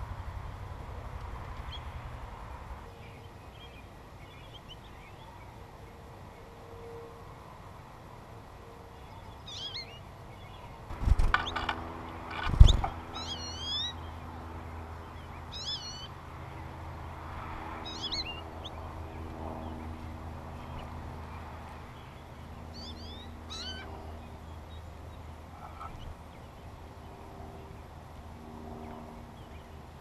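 Small songbirds at a feeder giving short, high chirping calls now and then, some with quick up-and-down pitch slides, over a low steady hum. Near the middle, two sharp knocks a second and a half apart stand out as the loudest sounds.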